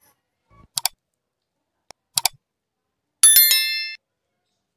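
Subscribe-button overlay sound effect: two quick double mouse-clicks about a second and a half apart, then a loud bell ding near the end that rings for under a second and fades.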